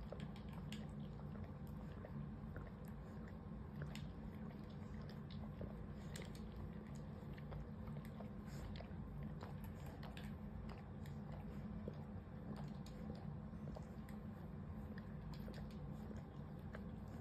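A cat grooming itself, licking and nibbling at its fur: faint, irregular small clicks and smacks over a steady low hum.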